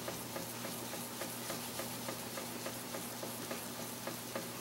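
A cloth polishing pad rubbed in circles over tacky shellac on a sewing machine bed, giving a faint rhythmic tick or squeak about three times a second, over a steady low hum.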